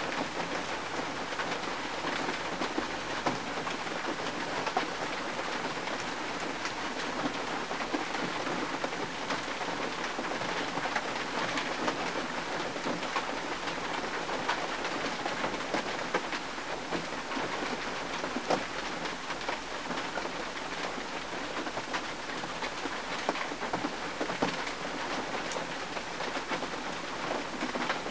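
Steady rain falling on a car's windshield: a dense, even patter dotted with many single drop ticks.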